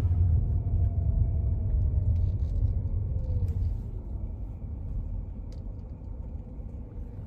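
A car driving, its low road and engine rumble heard from inside, steady at first and easing off about halfway through.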